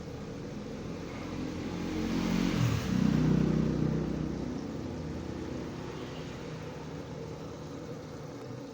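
Crispy battered chicken deep-frying in hot oil with a steady sizzle, near the end of cooking. A passing motor vehicle's engine rises over it, loudest from about two to four and a half seconds in.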